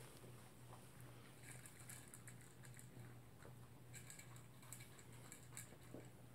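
Toy poodle eating its dinner from a bowl: faint, irregular small clicks and chewing sounds as it picks up and eats its food.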